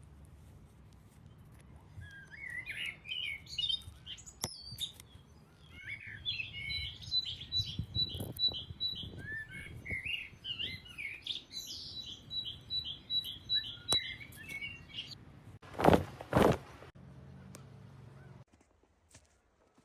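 Birds chirping and twittering, with one bird repeating a single high note over and over. Near the end come two loud thuds about half a second apart.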